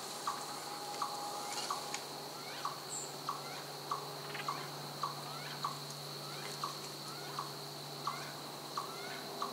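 An animal's short, rising chirping call, repeated about three times every two seconds, over a steady high-pitched drone of woodland ambience.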